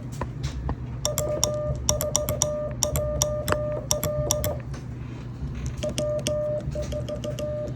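Morse code (CW) sent on a Begali Simplex paddle through the radio's electronic keyer. The radio's sidetone beeps in dits and dahs and the paddle clicks with each element, over a low steady hum. The sending pauses for about a second midway, then resumes.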